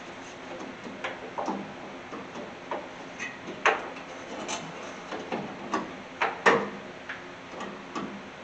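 Irregular metal clicks and clinks from a headlight bucket and its retaining spring being worked into place by hand in a 1981 Chevy C10's radiator support. The two loudest clanks come a little before halfway and about three-quarters of the way through.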